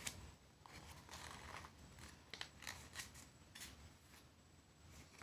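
Near silence: room tone with a few faint, short rustles and clicks.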